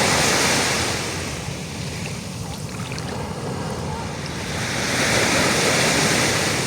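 Ocean surf: a wave's wash at the start that fades, then a second wave swelling and breaking about five seconds in.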